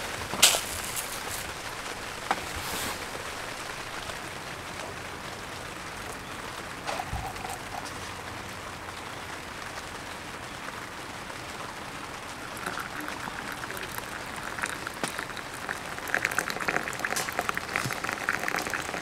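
Hot water poured in a thin stream from a metal pot into a small gooseneck drip kettle, filling it, with the splashing growing louder and brighter over the last several seconds. A sharp knock about half a second in.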